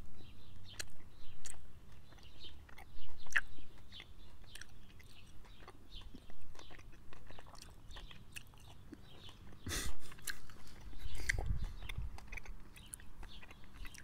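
Close-up chewing of a sticky, gooey sugar candy studded with crunchy little sprinkle beads, with many small wet clicks and smacks. There is a louder bump about ten seconds in.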